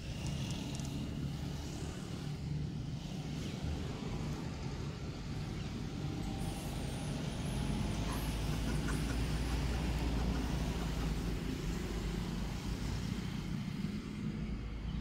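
Steady low rumble of outdoor background noise, with a faint high wavering chirp about six seconds in.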